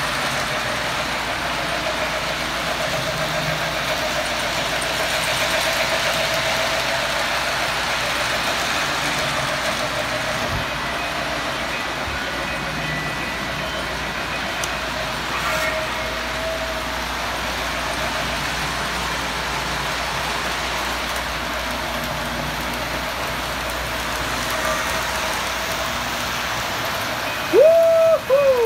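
Model trains running around the track, a steady whirring and rolling din of motors and wheels. Near the end a short loud tone sweeps up, holds briefly and falls away.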